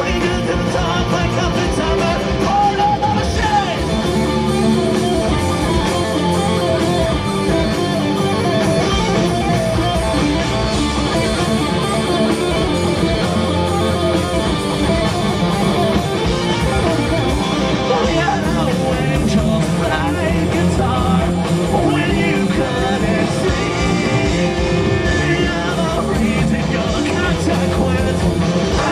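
Punk rock band playing live and loud: a singer's voice over electric guitars, bass and drums, heard through the PA from the crowd.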